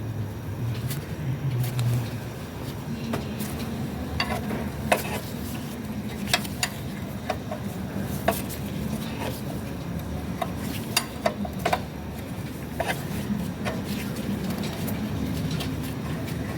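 Scattered metallic clinks and taps, some fifteen or so at uneven intervals, over a steady low engine hum.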